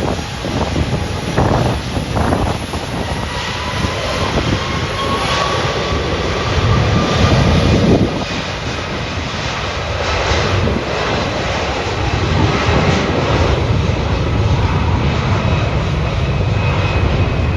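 An airliner's engines running loud, a continuous rumble with a faint whine that slowly rises in pitch over the first few seconds.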